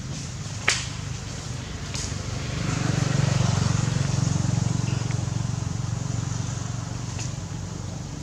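Outdoor ambience with a low motor-vehicle rumble that swells for a few seconds and then fades as it passes, punctuated by a few sharp clicks, the loudest about a second in.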